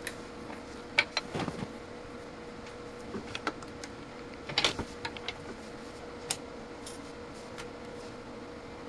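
Clicks and knocks of a hand handling a handheld multimeter's test leads and plugs, with the sharpest click about a second in and a few more through the middle. A faint steady tone runs underneath.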